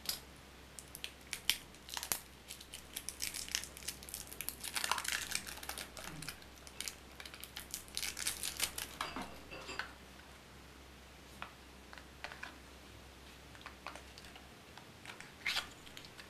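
Thin plastic wrapping on a pair of AA batteries crinkling and tearing as it is cut and peeled off by hand, with small clicks of the batteries. It is busiest over the first ten seconds, then thins to a few scattered clicks and a short rustle near the end.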